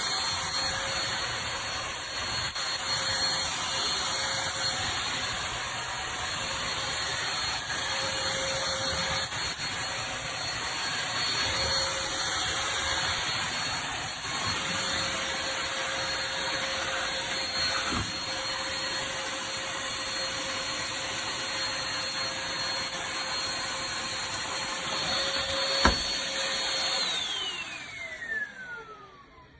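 Dreame G10 Combo cordless wet-dry vacuum running with a steady high whine. Near the end there is a click as it is switched off, and the motor winds down with a falling whine.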